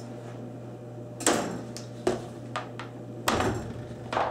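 A plastic mold knocking against a wooden cutting board as a block of set agar water jelly is worked loose: four sharp knocks with lighter taps between, the loudest about three seconds in. A steady low hum lies underneath.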